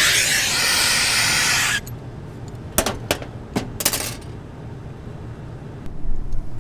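A loud rushing hiss of gas that stops abruptly about two seconds in. It is followed by a handful of sharp, light metallic clinks of tools or fittings being handled.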